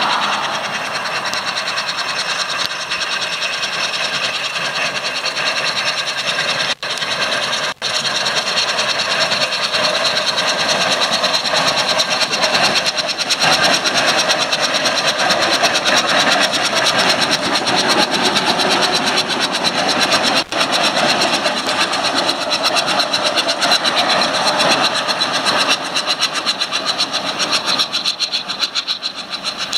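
Burrell steam traction engine running along the road, a steady mechanical clatter with a quick, even beat as it approaches and passes. Near the end, cars following behind it pass close by.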